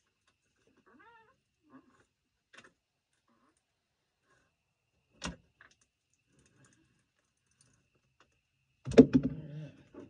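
Backhoe transmission being lowered on a jack: faint squeaks, a sharp knock about five seconds in, then near the end a loud knock followed by a short pitched creak, with a plate rubbing on something as it comes down.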